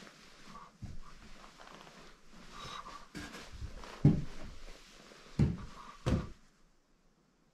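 Footsteps and thumps on old wooden floorboards, a handful of heavy steps with creaks in between, the loudest near the middle and end. They stop suddenly shortly before the end.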